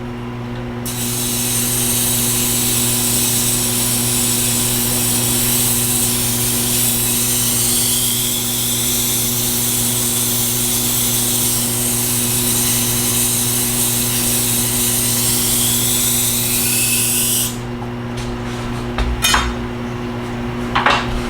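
Tormek T-8 wet grinder humming steadily while a diamond plate is held against its turning grindstone to dress the stone: a steady, high rasping hiss starts about a second in and stops sharply after about 17 seconds, followed by a couple of light knocks near the end.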